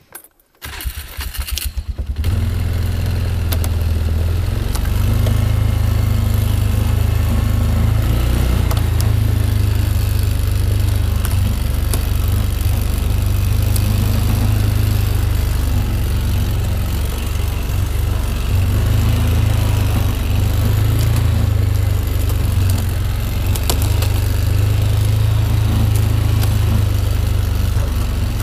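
Polaris six-wheeler ATV engine running at a steady low drone while driving through brush, heard close up from the handlebars. The engine sound comes in about two seconds in, after a brief quiet moment.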